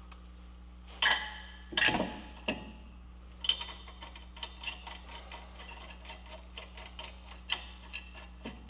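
Metal-on-metal handling at a car's front wheel hub and brake rotor: two sharp clanks with a short ring about a second apart, then a run of light, irregular clicking and ticking.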